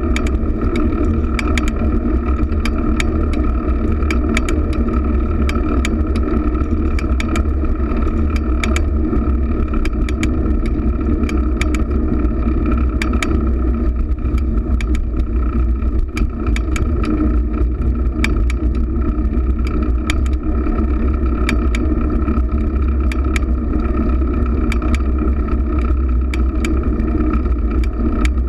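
Riding noise of a fixed-gear bicycle heard from a handlebar-mounted camera: steady wind rush and road rumble, with frequent short clicks and rattles.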